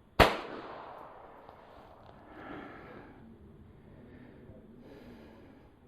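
A single .22 LR shot from a Ruger Charger pistol: one sharp crack just after the start, with a tail that dies away over about a second.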